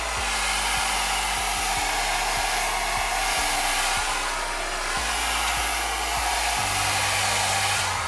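Xiaomi Mi Ionic hair dryer (CMJ01LX3) running in its first mode and blowing warm air: a steady rush of fan and air noise.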